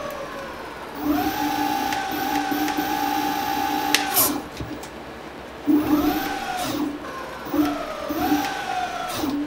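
VSETT 10+ electric scooter's hub motor whining under throttle: it rises about a second in, holds a steady whine for about three seconds, then winds down, followed by several short rising and falling blips.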